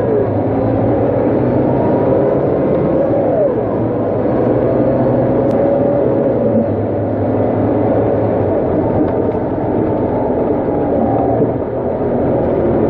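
Scania K230UB bus with a ZF automatic gearbox, driving and heard from inside the cabin: a steady low engine drone under a transmission whine that glides up and down in pitch, dropping sharply about three and a half seconds in.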